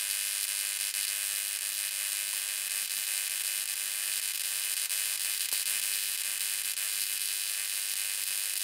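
High-voltage electric arcs burning steadily between wire electrodes through magnesium shavings, giving a continuous buzzing hiss.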